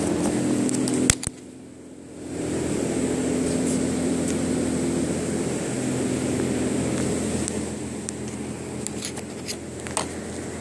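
A steady machine hum with low droning tones, dropping away briefly just after a sharp click about a second in, then returning. A few light clicks and taps near the end.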